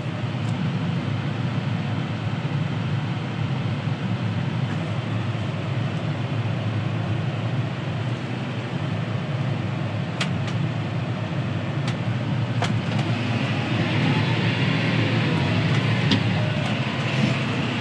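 John Deere 6R tractor's engine running steadily under load while driving, with a few light clicks.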